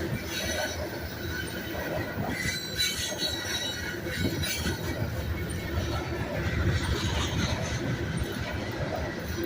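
Freight train cars rolling steadily past at close range: a continuous rumble of steel wheels on rail with some wheel squeal. The train is one the railfan says is full of flat-spotted wheels.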